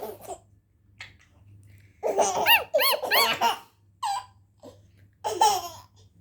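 A baby laughing in high-pitched squealing bursts, one run about two seconds in and a shorter one near the end, with quiet gaps between.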